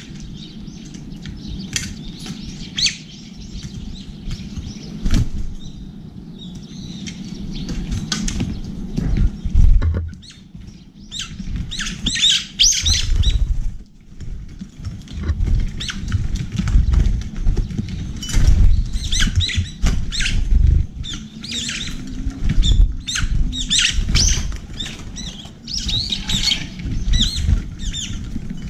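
Small birds feeding from stainless steel trays: brown-eared bulbuls and Eurasian tree sparrows pecking and tapping at seeds on the metal, with wings flapping as sparrows fly in and out. The clicking gets busier about eleven seconds in, and low dull thumps come and go.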